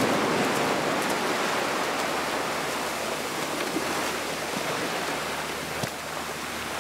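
Surf breaking and washing up the beach, a steady rush of water that slowly fades.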